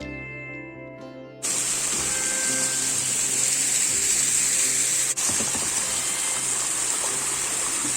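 Gentle guitar background music, overlaid about one and a half seconds in by a loud, steady rushing hiss of water that drowns it out, with a brief break near the middle.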